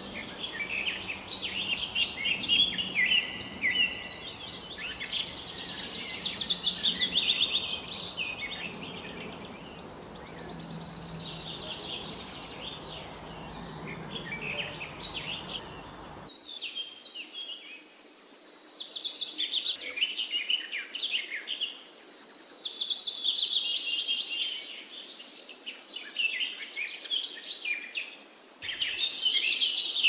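Several songbirds singing at once, overlapping chirps, trills and falling phrases. A low background hiss under the song stops abruptly about sixteen seconds in, and the song continues.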